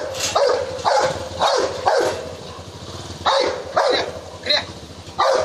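A Rottweiler barking aggressively in a lunging stance: about eight loud, short barks in uneven clusters.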